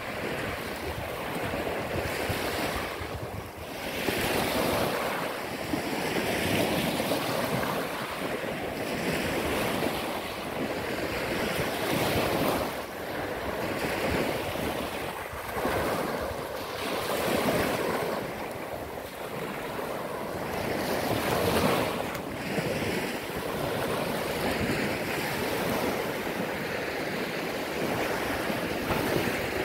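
Small waves washing up and breaking on a sandy beach, the surf swelling and fading every few seconds.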